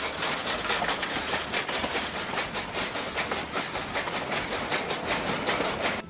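Denver & Rio Grande Western narrow-gauge K-27 Mikado steam locomotive No. 464 moving slowly while switching. It makes a fast, even beat of exhaust and running-gear noise, several strokes a second, over a steady steam hiss.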